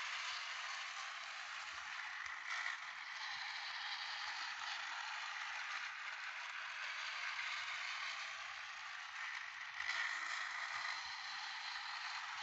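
Battery-powered toy train running on its plastic track, a steady running noise that swells slightly about two and a half seconds and ten seconds in.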